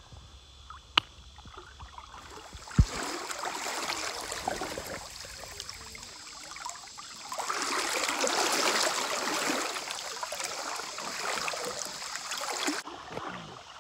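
Rushing, splashing river water, swelling louder around the middle and dying away near the end, with a sharp click about a second in and a low thump shortly before three seconds.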